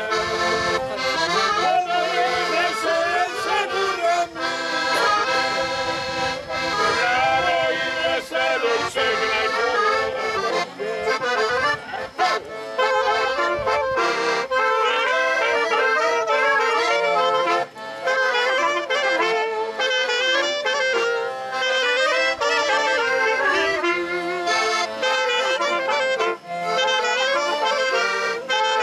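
Small folk band playing a traditional instrumental tune on accordion, trumpet and clarinet.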